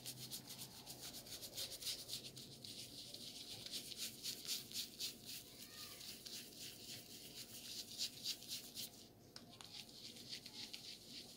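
Bristles of a handheld facial cleansing brush scrubbing firmly over lathered skin in quick, rhythmic strokes, several a second, with a brief pause about nine seconds in. The brush is an electric one with a dead battery, worked by hand in circles.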